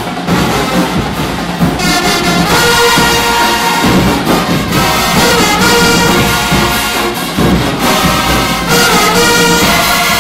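College marching band playing a loud, brass-heavy tune: trumpets, trombones, mellophones and sousaphones on sustained chords in short phrases.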